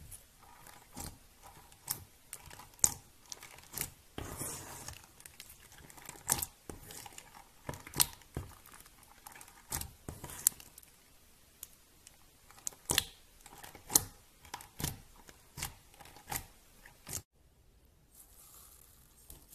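Clear slime being poked and pressed by fingers, giving irregular sharp pops and clicks, about one or two a second. Near the end the popping stops and only a faint hiss is left.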